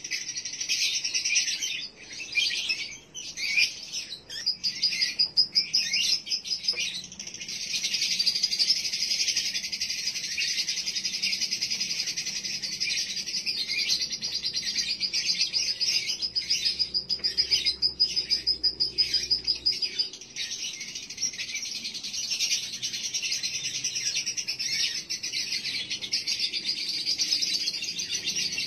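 Male lovebird chattering (ngekek) in long, rapid, high-pitched trills, with a few short breaks near the start and then one long unbroken run: the continuous style that lovebird keepers call konslet, played as a lure call to rouse other males into breeding condition.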